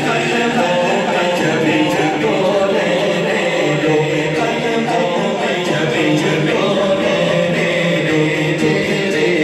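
A man's voice reciting a devotional naat in a sustained, melodic chant, sung unaccompanied into a microphone and amplified.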